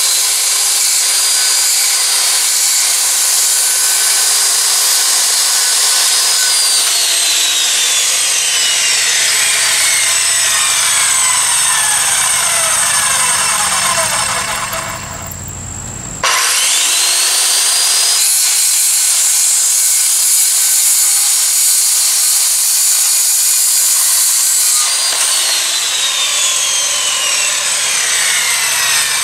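Corded circular saw ripping lengthwise through a wooden board. The motor's pitch falls away about seven seconds in and goes quieter for a moment around fifteen seconds. The saw starts again with a rising whine about sixteen seconds in and cuts on until its pitch falls away again near the end.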